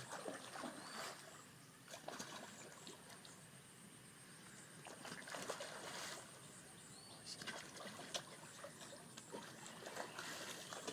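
Fish splashing at the water surface as they take floating bread, in irregular bursts every second or two.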